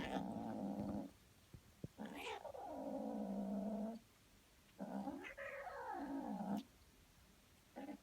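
A cat making long, demonic-sounding yowls: three drawn-out calls of one to two seconds each, the third rising and then falling in pitch, and a short one near the end.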